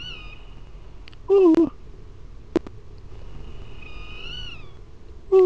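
Cat meows, twice about four seconds apart, each a short call falling in pitch. Each comes after a quieter high held tone that bends at its end, and there is a single click between them.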